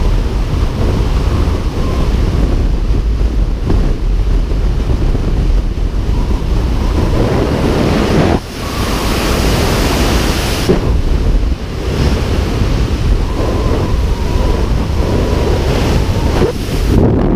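Heavy wind rush buffeting the camera's microphone in skydiving freefall, steady throughout and easing briefly about eight seconds in.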